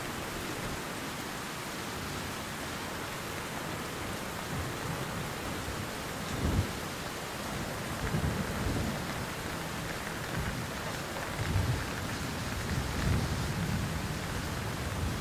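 Steady rain falls throughout. From about six seconds in, low rumbles of thunder come several times.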